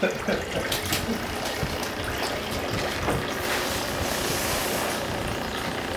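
Steady low rumble of a motor vehicle's engine running, with a few light knocks over it in the first few seconds.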